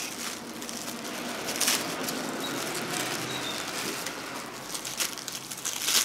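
Cling film and thin plastic bag wrapping crinkling and rustling as it is pulled apart by hand.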